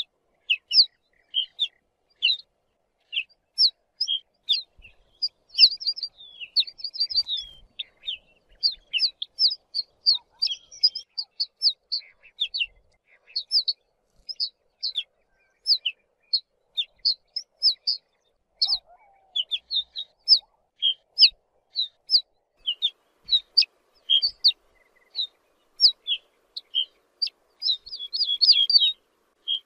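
Ortolan bunting calling: short, high chirping notes repeated irregularly, about two or three a second, now and then crowding into quick runs.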